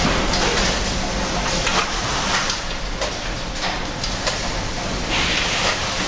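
Automatic carton-sealing machine and roller conveyor running: a steady mechanical hiss and hum with irregular clacks and knocks as cardboard cartons move along the rollers, and a louder hiss near the end.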